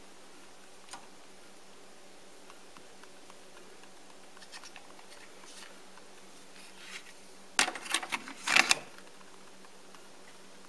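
A cassette being pushed into the Sansui SC-1110 deck's tape holder and the cassette door snapping shut: a quick cluster of sharp plastic clicks and knocks about eight seconds in, after a few faint handling ticks.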